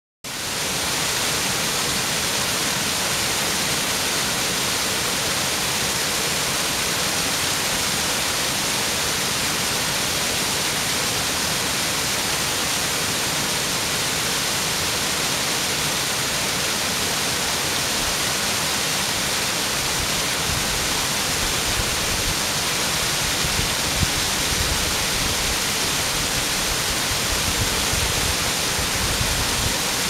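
Small creek waterfall, partly iced over, rushing steadily as water pours over an icy rock ledge. Low rumbling joins in over the last third.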